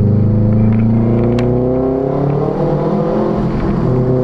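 Subaru WRX's turbocharged four-cylinder engine with the muffler removed, the exhaust nearly open after the downpipe, accelerating hard. The throttle opens suddenly, then the exhaust note climbs steadily in pitch.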